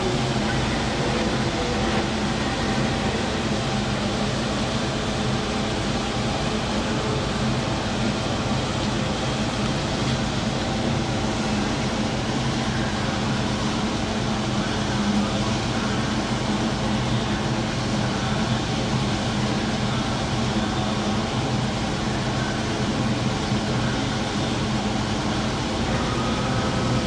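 Forklift engine running steadily with an even hum.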